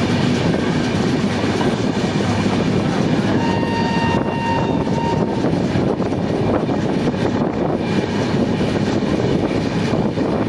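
Steady, loud running noise of a passenger express train moving over the rails. A brief steady high tone sounds for about a second and a half, about three and a half seconds in.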